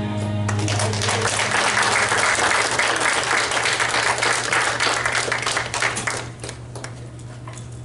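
Congregation applauding at the end of a song, the last guitar chord cutting off about half a second in. The clapping is full for about five seconds and then dies down to a few scattered claps.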